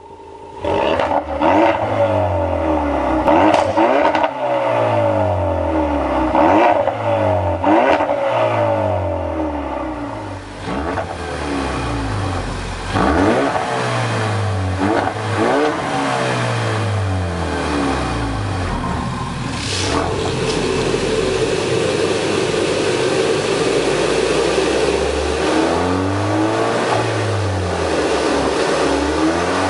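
Ford Focus RS Mk3's turbocharged 2.3-litre four-cylinder through a Milltek sport exhaust, revved up and dropped back again and again in short blips, then running more steadily for the last third with a couple more revs near the end.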